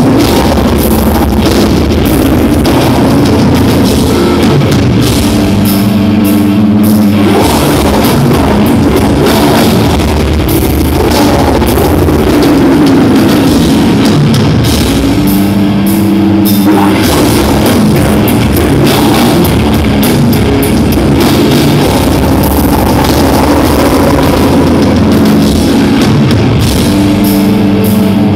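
Death metal band playing live, loud and without a break: distorted electric guitars, bass and drum kit.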